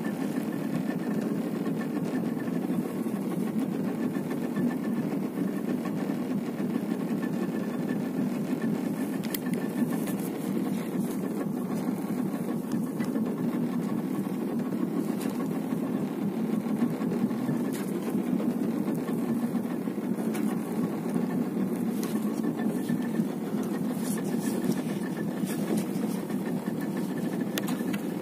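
Boat engine idling steadily, with a few faint clicks and knocks now and then.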